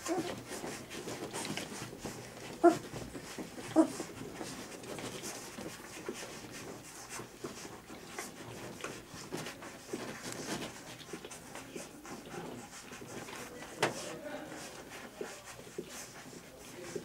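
Three-week-old golden retriever puppies nursing, with a steady faint texture of small wet suckling clicks and smacks. Two short puppy squeaks come about two and a half and four seconds in, and a brief sharp sound comes about fourteen seconds in.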